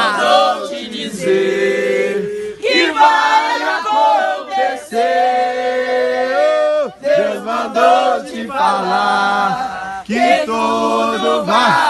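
Several voices chanting and singing together in long, wavering held notes, overlapping one another.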